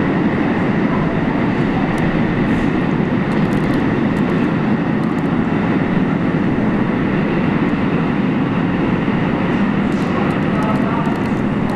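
Subway Q train running away down the tunnel from the station: a steady, loud rumble with a faint thin high tone over it.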